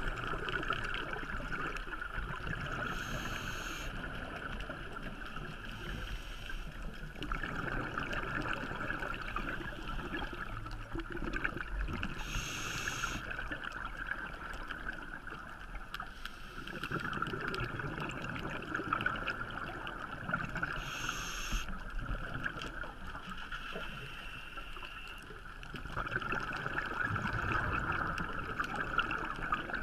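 Scuba diver breathing through a regulator underwater: a short hiss on each inhale, about every nine seconds, with exhaled bubbles gurgling out between breaths.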